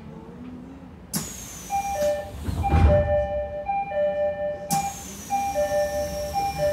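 An electronic chime alternating between two notes, repeated over several seconds, with a faint high tone sliding slowly downward. It is heard from inside a stopped Odakyu 3000-series train car before departure. There is one dull thump midway.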